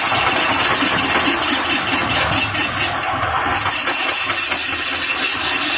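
Wood lathe running steadily while a cutting tool takes a light first pass on a heavy rosewood log.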